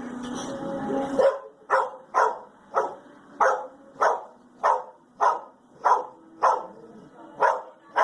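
A dog barking over and over, about eleven short sharp barks, roughly one every 0.6 s, starting about a second in after a moment of steady low noise.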